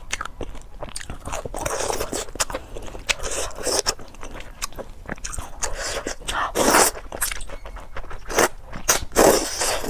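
Close-miked eating of rice noodles with pickled mustard greens and crispy pork cracklings: biting and chewing with crunchy clicks, and several longer noisy swells, the loudest about seven and nine seconds in.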